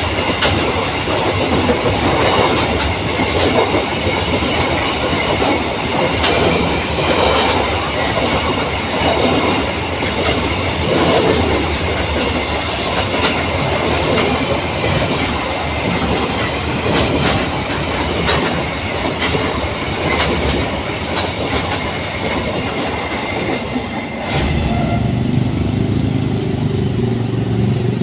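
Train cars rolling past with repeated clatter of wheels over rail joints and a steady high squeal. About 24 seconds in, the train noise stops and a low engine rumble takes over.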